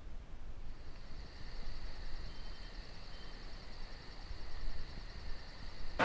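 Forest insects calling: a steady high buzz with a fast, even pulsing above it, about five or six pulses a second, starting about a second in.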